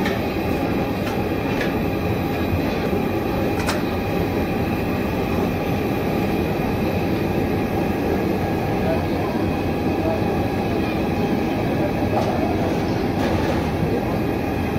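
Steady low-pitched background noise with no clear rhythm, with a couple of faint clicks in the first few seconds.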